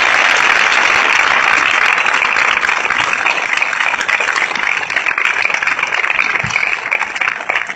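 Audience applauding: dense clapping that thins out somewhat toward the end.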